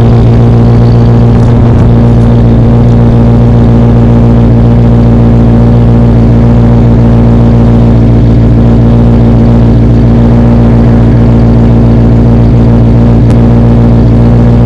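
Jeep Grand Cherokee ZJ's 5.2 L Magnum V8, bored out, idling steadily on a cold start through long-tube headers, no catalytic converter and a Flowmaster Super 44 muffler, with the exhaust cutout closed. The exhaust note is loud and even.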